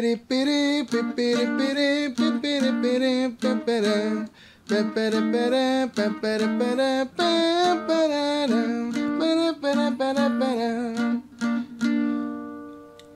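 Twelve-string bajo sexto strummed in a steady rhythm on B-flat and F7 chords while a man voices the accordion's melody line over it, ending on one long held note.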